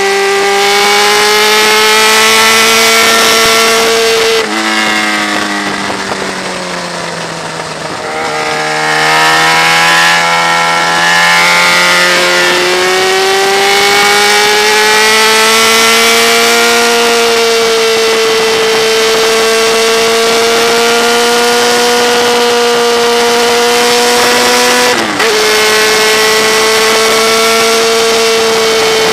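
Sport motorcycle engine running hard at speed, with a rush of wind over it. About four seconds in the revs fall away as the throttle closes, then climb again a few seconds later and hold steady. Near the end there is a brief break and the engine picks straight back up.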